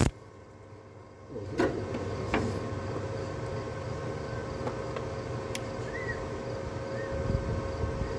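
Harbor Freight 125 flux-core welder's arc stops, then strikes again about a second and a half in and runs as a steady buzzing crackle while a weld is laid on the truck bed's sheet metal.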